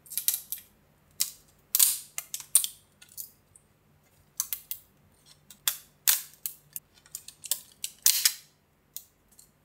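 Irregular sharp plastic snaps and clicks, one or two a second, as support material is broken and cut away from a freshly 3D-printed ABS part.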